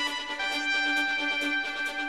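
Television news theme music: a held chord over a steady pulse of about four beats a second.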